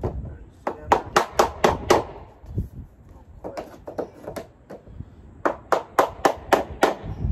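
Mallet blows knocking plastic shelving parts together during assembly: two runs of quick, sharp strikes, about four a second, with a short pause between.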